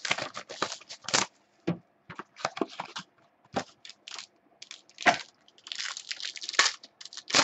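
Packaging of a 2015 Panini Inception football card box being torn and crinkled open, a run of sharp crackles and tearing rustles with a second flurry near the end.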